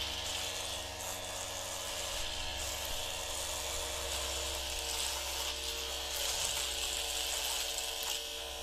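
Steady whirring of a small electric motor, even and unbroken.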